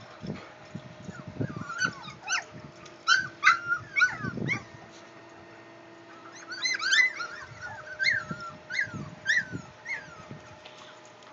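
Young puppies squealing and yipping in short, high-pitched cries, in two flurries separated by a pause of about two seconds.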